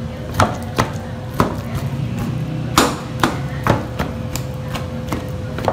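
Knife point stabbed repeatedly through a marinated beef roast into the tray beneath, giving sharp knocks at irregular intervals, about seven in a few seconds. A steady low hum runs underneath.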